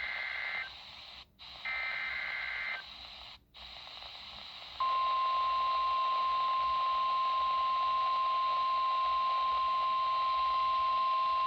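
NOAA Weather Radio Emergency Alert System activation heard through a weather radio receiver: two short bursts of the warbling SAME data header with brief pauses between them, then about five seconds in the steady 1050 Hz warning alarm tone starts and holds. The header and tone announce an ice storm warning.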